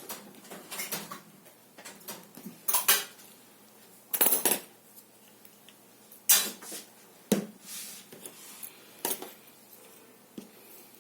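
Small hard objects clinking and rattling as they are handled, in about six short bursts, the loudest near the middle.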